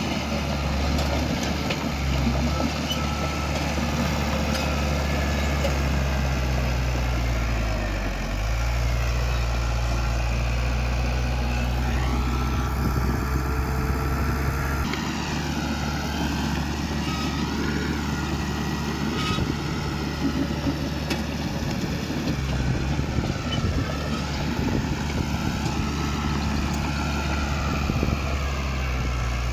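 Heavy diesel engine of earthmoving machinery running steadily. Its pitch dips briefly about eight seconds in and shifts again around fifteen seconds.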